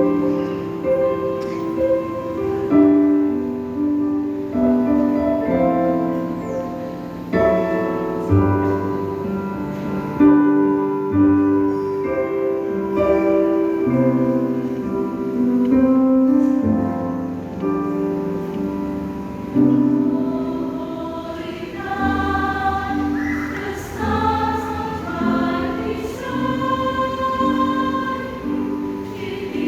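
Church choir singing in several-part harmony, the voices holding notes together and moving from chord to chord.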